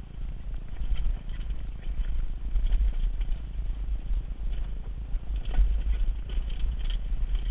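Wind rumbling and buffeting on the microphone of a mountain bike descending a rocky dirt trail, with scattered rattles and clicks from the bike jolting over the rough ground, busiest a little past the middle.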